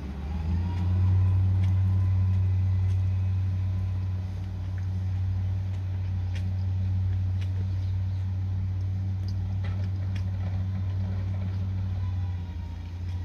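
A motor vehicle's steady low hum, with a faint whine that comes up about half a second in and fades away near the end.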